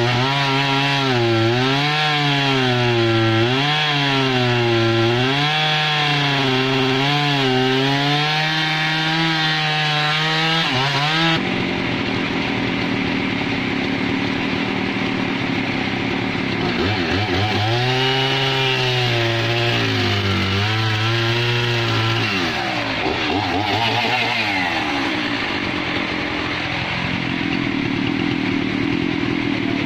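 Husqvarna two-stroke chainsaw running hard and cutting into a log, its pitch dipping and recovering over and over as the chain bogs in the wood. About 11 seconds in the sound changes abruptly to a rougher, less even note, and the engine bogs again through a later stretch.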